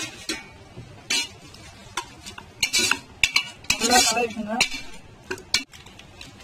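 Spatula stirring chunks of chicken and spice powder in a pressure cooker pot, scraping and knocking against the pot in irregular strokes over a light frying sizzle. The scraping is busiest and loudest about four seconds in.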